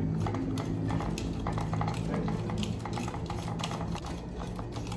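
Small plastic clicks and rattles of hands handling a toy's battery compartment, closing it back up, over a low steady hum.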